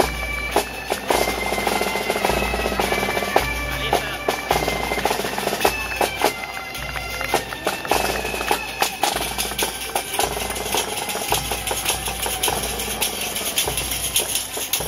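Galician bagpipes (gaitas) playing a melody in held, stepping notes over a steady drum beat of about one and a half strokes a second, with tambourines jingling on the beat.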